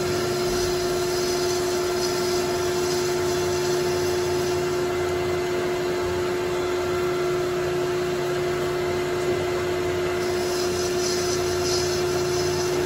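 Metal lathe running with a steady motor and gear whine while a turning pass is hand-fed into the spinning stock. A higher cutting hiss comes in during the first few seconds and again near the end.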